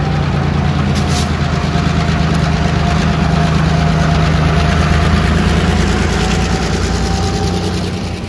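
Several diesel locomotives passing close below, their engines running with a steady low drone and a faint whine above it. The sound swells as the units go by and eases off near the end.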